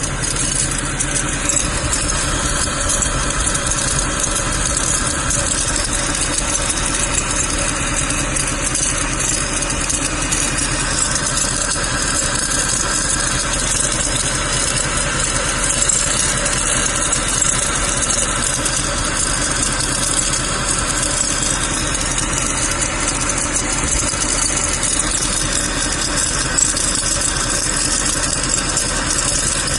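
Mercedes-Benz W204 C63 AMG's V8 running steadily, with a rattling noise from a bad belt-drive pulley that is due for replacement.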